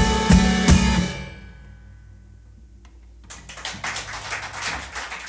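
Acoustic guitar and drum kit playing the final beats of a song, with steady drum strikes about three a second, stopping about a second in and ringing out. After a short pause a small audience starts clapping.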